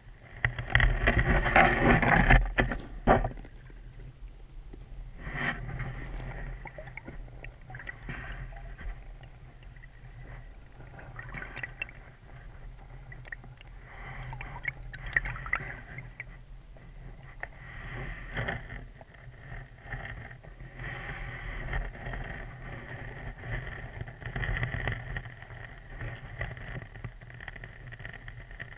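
Muffled underwater sound of a shallow stream heard through a GoPro's waterproof housing as the pole-mounted camera is pushed along the bottom. It is loudest for the first few seconds, with sharp knocks and scraping, then settles into a steady rushing with smaller bumps.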